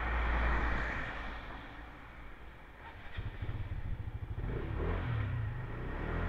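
Motorbike engine heard from the rider's seat, over a rustling rumble at first. About three seconds in its firing beat comes up strongly and it revs as the bike pulls away.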